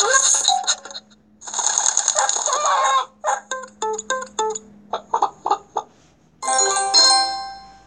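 Cartoon farmyard sound effects from a children's story app: a rooster crowing, then a run of short clucks. Near the end a bright chime rings out and fades.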